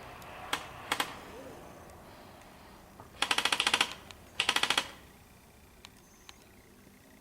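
Airsoft electric gun firing two short full-auto bursts of rapid, evenly spaced snaps, about fifteen shots a second, after three single sharp clicks in the first second.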